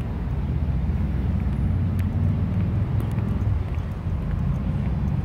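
Steady low outdoor rumble, with a few faint ticks about two and three seconds in.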